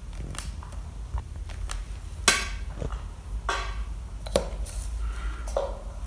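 Clear plastic ruler being picked up and laid down on paper: a few sharp clacks and taps, the loudest about two seconds in, followed by a ballpoint pen scratching on the paper.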